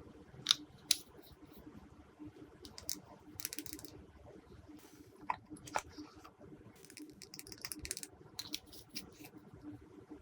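Glossy slime being pressed and mixed by hand, giving sharp sticky clicks and small crackling pops in scattered clusters, the loudest two just after the start.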